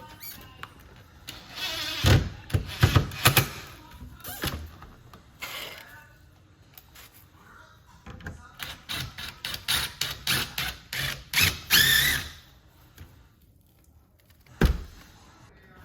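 Clacks and knocks of a pet door's frame pieces being handled and pressed into place while screws are fitted by hand, in two clusters of rapid knocks with a short squeak among the second, then a single thump near the end.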